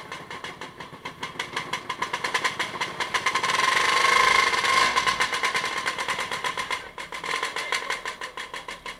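An engine running with an even, pulsing beat of about nine a second. It grows louder toward the middle, then eases off.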